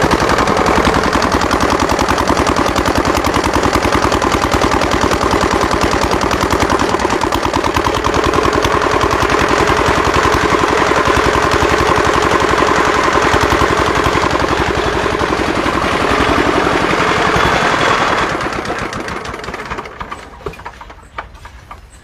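Small single-cylinder diesel engine running steadily with a rapid, even chugging while it belt-drives a chaff cutter chopping green fodder. About eighteen seconds in, the sound fades over a couple of seconds and dies down to a few scattered knocks.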